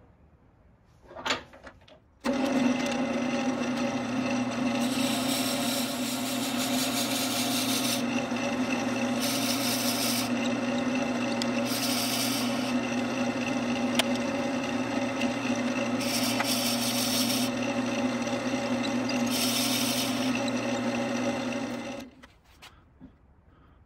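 Wood lathe running with a Forstner bit in a tailstock drill chuck boring into the end-grain of a spinning redbud blank. The steady motor hum starts about two seconds in, with several bouts of hissing chip-cutting noise as the bit is fed in, and stops about two seconds before the end.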